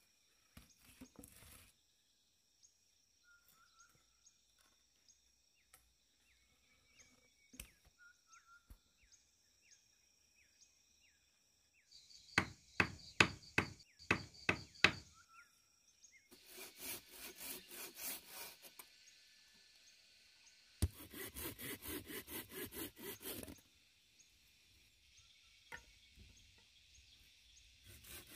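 About eight sharp knocks on wood in quick succession, then two spells of fast back-and-forth sawing strokes: a hand pruning saw cutting through wood or green bamboo. Faint insect chirps in the quiet stretches.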